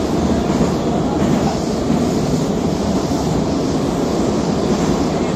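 Moscow metro train running, heard from inside the carriage as a steady, loud rumble of wheels and running gear.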